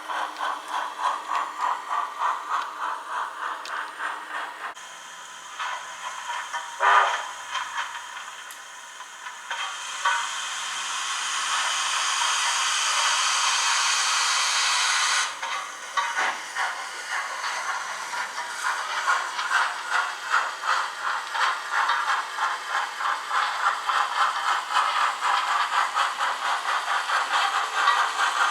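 Model steam locomotive's DCC sound decoder playing steady rhythmic steam chuffs, which drop away about five seconds in. From about ten seconds a loud steady steam hiss plays and cuts off suddenly about five seconds later, then the rhythmic chuffing starts again and keeps going.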